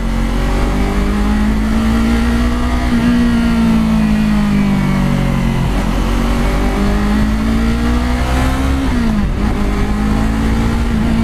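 Yamaha R3's parallel-twin engine running under way, its pitch holding fairly steady with gentle rises and dipping briefly about four-fifths of the way through, as the rider eases off or shifts.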